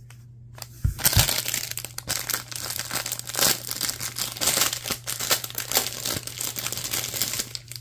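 Unboxing packaging being handled: continuous crinkling and rustling with many small crackles, starting about a second in, over a low steady hum.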